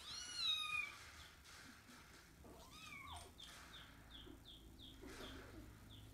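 Kitten mewing twice in high-pitched cries: a falling mew near the start and a shorter rising-and-falling one about three seconds in.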